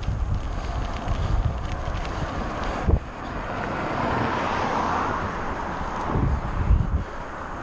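Wind buffeting a GoPro's microphone during a ride on a mountain bike over rough ground, with low rumbling thumps and one sharp knock about three seconds in. Midway the rushing hiss swells and then fades.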